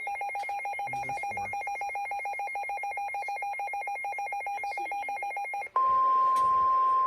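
A rapidly trilling electronic alert tone, alternating between two pitches many times a second. About 5.7 seconds in it gives way to a single steady, louder tone: the 1050 Hz warning alarm tone that NOAA Weather Radio sends before a warning message.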